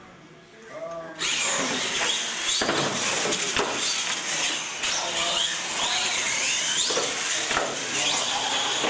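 Radio-controlled monster trucks racing, their electric motors whining and rising and falling in pitch, starting suddenly about a second in.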